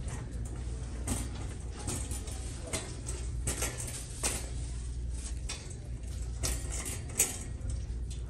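Store ambience: a steady low hum under scattered light clicks and clinks, with one sharper click about seven seconds in.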